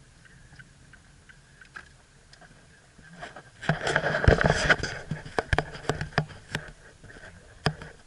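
Handling noise from a handheld camera being moved around inside a car: a loud rush of rubbing and knocking about three and a half seconds in, then scattered sharp clicks and taps, over a faint steady high whine.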